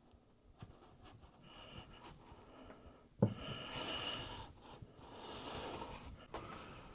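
Handling noise from an iMac being moved and laid down: faint clicks, a sharp knock a little past three seconds in, then two spells of scraping and rubbing against the casing.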